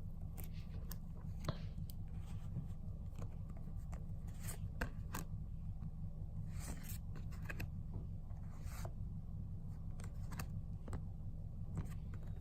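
Pokémon trading cards being handled and slid against one another, giving brief rustles and small clicks at irregular moments, over a steady low hum.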